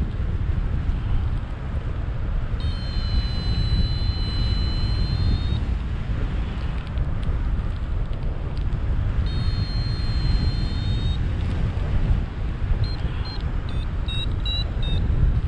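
Wind rushing over the microphone of a paraglider in flight, a steady low buffeting. Over it, electronic tones sound twice for two to three seconds each, then come as a quick run of short beeps near the end.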